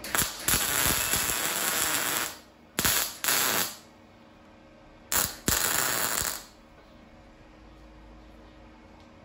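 MIG welding arc crackling and hissing as square mild-steel bar is tack-welded, in several short bursts that each start and stop abruptly over the first six or so seconds.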